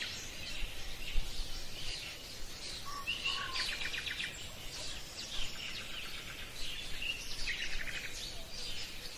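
Birds singing: scattered chirps and whistles with a rapid trill of repeated notes about every few seconds, over a faint steady hiss.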